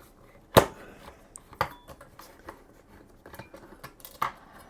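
Hard drive and its metal mounting bracket being handled on a bench: a sharp metallic knock about half a second in, then a few lighter clicks and clinks.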